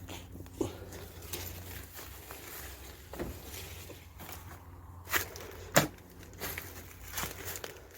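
Footsteps and handling noises: scattered light clicks and knocks, the loudest a pair of sharp knocks about five and six seconds in, over a low steady hum.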